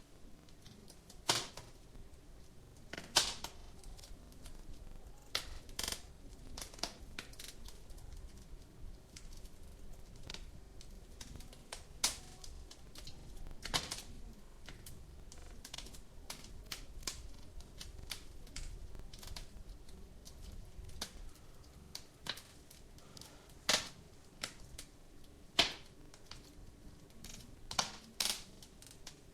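Wood fire crackling in a fireplace: irregular sharp snaps and pops, a dozen or so louder ones among many small ticks, over a faint low rumble of the flames.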